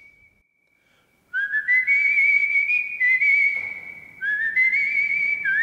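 A man whistling a slow air with his lips, high and clear. After a brief silence, each phrase slides up into a long held note with a slight vibrato, in three phrases.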